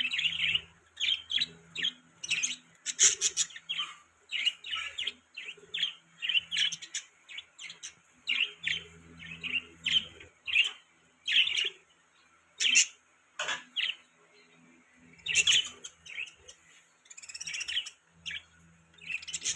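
Budgerigars chirping and warbling: a continuous run of short, high chirps and chattering notes, several a second with brief gaps.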